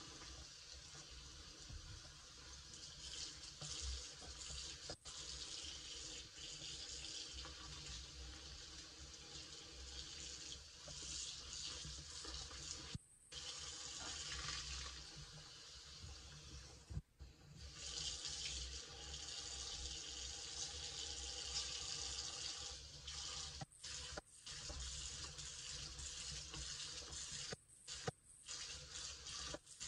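Bathroom faucet running steadily into a sink while a soapy sponge is squeezed and rubbed under the stream, the water splashing off it. The sound cuts out briefly a few times.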